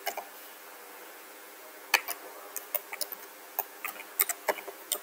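Keys tapped on a computer keyboard: a couple of sharp clicks near the start, a pause, then an irregular run of keystrokes from about two seconds in.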